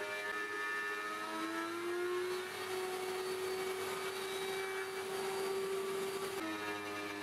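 Background music of sustained electronic chords; the held notes slide up slightly about a second and a half in and change to a new chord near the end.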